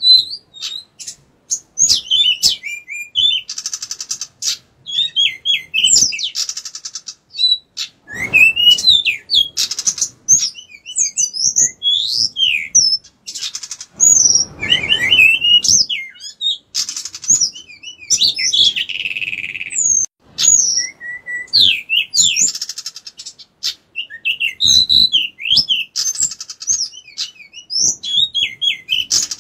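A caged male pied bushchat (decu) singing vigorously: a fast, varied run of chirps, slurred whistles and buzzy trills with short pauses. A few low rustles sound under the song.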